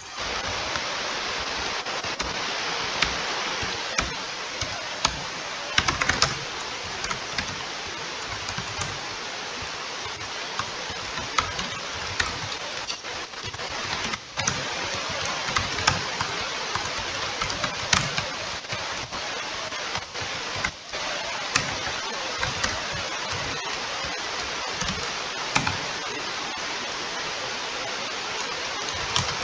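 Laptop cooling fan running loud with a steady rushing whoosh, the humming of a noisy laptop; it rises sharply at the start, with a few scattered clicks and knocks over it.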